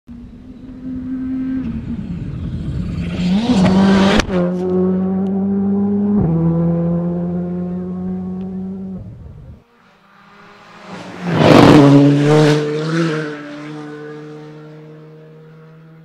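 Two passes of a rally car at full speed on a stage. Each engine note rises as the car approaches, drops sharply as it goes by, then fades. The first pass cuts off suddenly before the second comes in.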